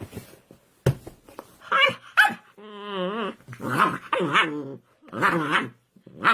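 A dog barking and growling: two short barks, then three longer growling calls with a wavering pitch.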